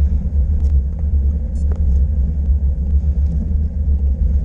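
Steady low rumble of wind and road noise on a camera mounted on a moving vehicle climbing the road.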